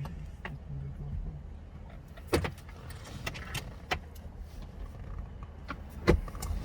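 Sharp metallic clicks and knocks of hand tools working the bolts of a screen-mount bracket, the loudest about six seconds in, over a low steady hum.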